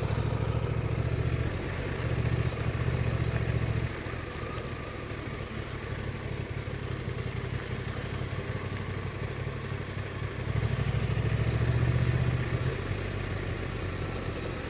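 Honda Transalp motorcycle engine pulling at low speed over rough ground, louder under throttle for the first four seconds and again for about two seconds after ten seconds in, easing off between.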